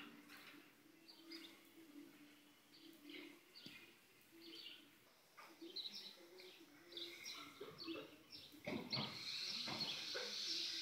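Faint birds chirping in the background, short high chirps scattered throughout. A couple of knocks come about nine seconds in, followed by a steadier high hiss.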